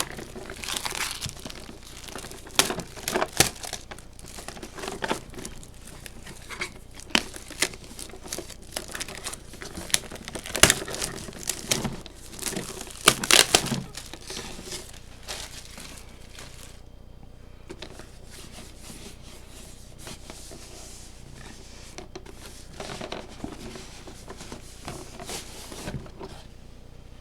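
Plastic shrink wrap being cut and peeled off a Pokémon Elite Trainer Box, crinkling and tearing in irregular bursts, busiest in the first half and sparser later.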